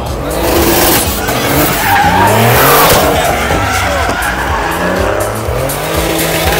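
Drift car sliding with its tyres squealing and skidding, the engine revving up again and again in rising sweeps.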